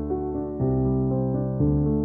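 Background music: a soft piano piece of sustained chords, changing about once a second.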